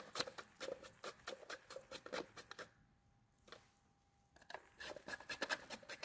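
Flat-blade screwdriver turning out the lid screws of a plastic gas-detector housing: faint, rapid scratchy clicking, in two runs with a pause of about a second and a half in the middle.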